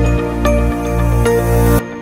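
TV station ident jingle: synthesised music with held chords over a deep bass. The full sound cuts off near the end, leaving a chord ringing and fading.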